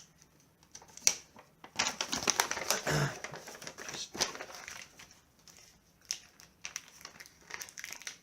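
Handling noises from paper and packaging: scattered light clicks and taps, with a longer stretch of rustling about two seconds in and a dull knock about three seconds in.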